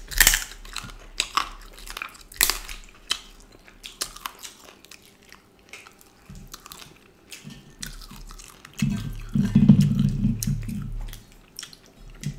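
Close-miked chewing and biting of curried duck meat and rice-flour roti, with many sharp wet mouth smacks, thickest in the first few seconds. A louder low, muffled sound sits under the chewing for about two seconds near the end.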